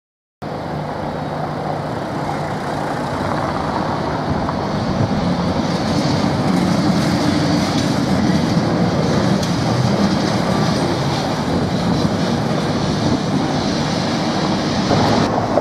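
Vintage Lisbon Carris tram running along street rails, its wheels rumbling and clattering on the track, growing louder as it passes close about halfway through.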